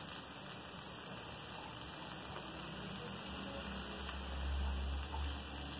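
Egg, ham and cheese sizzling in oil in a small frying pan over a homemade alcohol can stove, a steady soft crackle. A low rumble swells briefly about four seconds in.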